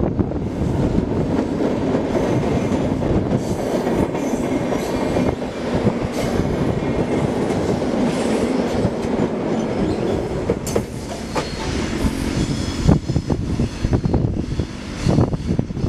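Renfe UT-440 electric multiple unit passing at speed over a steel truss viaduct: a steady rumble of wheels on rail, with sharp clattering clicks from the wheels over the track.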